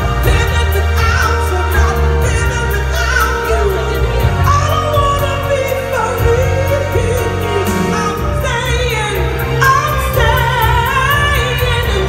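A woman singing an R&B song live into a microphone over a full backing band with heavy bass; her voice slides and bends through long held phrases.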